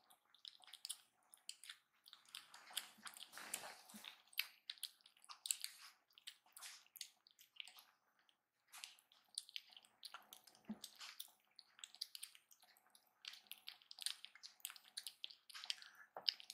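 Kittens eating wet cat food: a quick, irregular patter of small wet chewing and smacking clicks.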